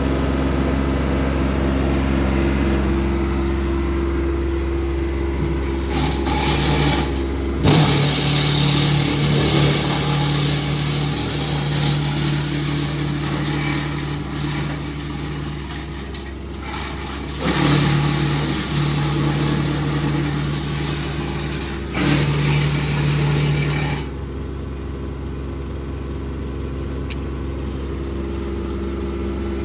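Tractor engine running steadily while driving a wood chipper, its note shifting abruptly a few times.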